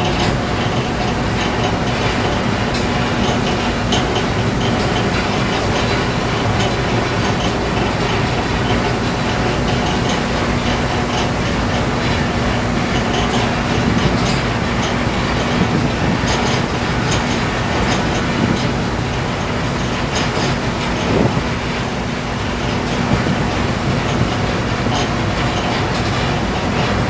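Steady rumble of a container ship under way: a constant engine hum under the rushing of water along the hull.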